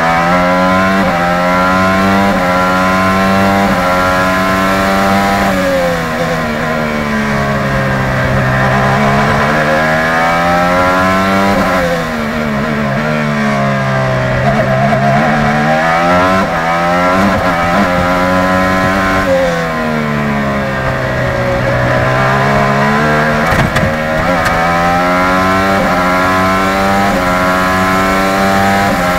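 IndyCar's twin-turbocharged 2.2-litre Honda V6 at racing speed, heard onboard: the engine pitch drops sharply through quick downshifts into a corner three times, about six, twelve and twenty-one seconds in, then climbs back up through the gears on each exit.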